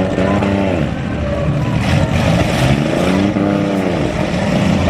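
Compact-car engines revving in a demolition derby, the pitch climbing and dropping twice, with two sharp knocks about two seconds in over a steady din.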